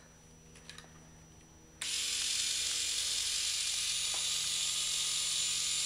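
K'nex ball machine mechanism running with a steady mechanical whir, starting suddenly about two seconds in after near quiet.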